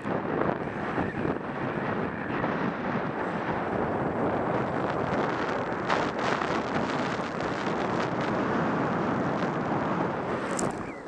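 Steady rush of wind on the microphone of a skier's camera moving fast downhill, mixed with skis hissing and scraping over packed snow, with a few brief harsher scrapes about six seconds in.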